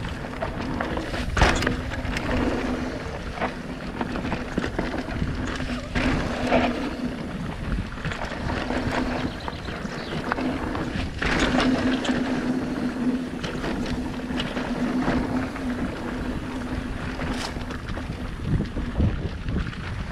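Mountain bike riding a dirt forest singletrack: tyres rolling over dirt and roots with wind on the microphone, and sharp knocks and rattles from the bike as it hits roots, the loudest about a second and a half in. A low steady hum strengthens and fades along the way.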